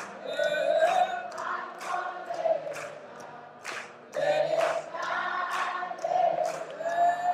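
A choir singing, holding long notes that change every second or so.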